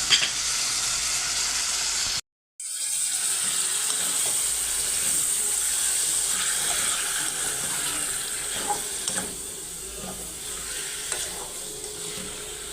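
Chicken liver adobo cooking in a pan, a steady sizzling hiss with a few small pops. The sound drops out for a moment about two seconds in, then carries on the same way.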